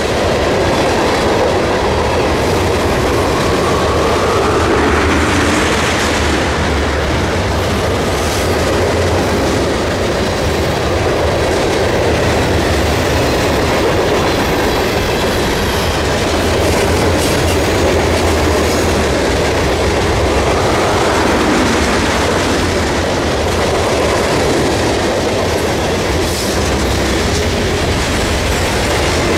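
A freight train's cars, covered hoppers and boxcars, rolling past at speed: steel wheels clattering over the rail joints in a steady loud rumble, with a wheel squeal rising in pitch about five seconds in.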